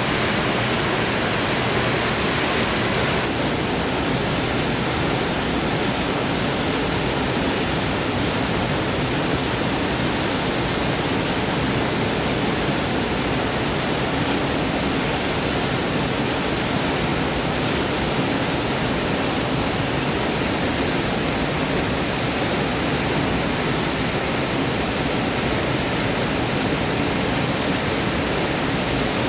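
Waterfall: running water falling and splashing in a steady, unbroken rush. A slight change in its tone about three seconds in.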